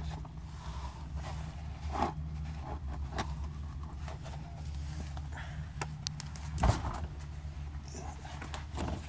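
Scuffing, rustling and light knocks of someone moving around under and beside a car, with one loud knock about two-thirds of the way through, over a steady low hum.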